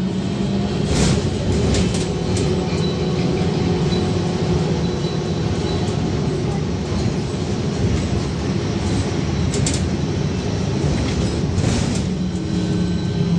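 Cabin noise of a VMZ-5298.01 trolleybus under way: a steady rumble of the running gear and tyres on the road, with a few short, sharp rattles of the body.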